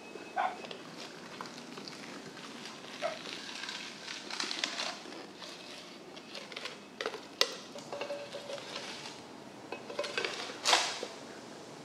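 Large knife cutting through the scaly skin and flesh of a giant bluefin tuna on a wooden board. It makes a series of scraping cuts with a few sharp clicks, and the loudest stroke comes near the end.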